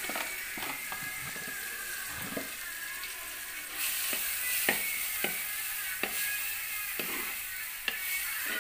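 Ground coconut spice paste frying and sizzling in a black pot, stirred with a steel spoon. The sizzle grows louder about four seconds in, and from then on the spoon knocks against the pot about once a second.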